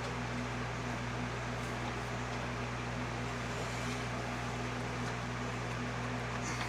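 Steady mechanical hum with an even hiss, like a running fan or similar machine, holding level with no change.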